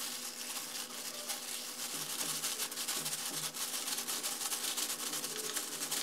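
Plastic-gloved hand squeezing and kneading minced beef with garlic and seasoning on a plate: a steady rubbing and rustling of the thin glove against the meat.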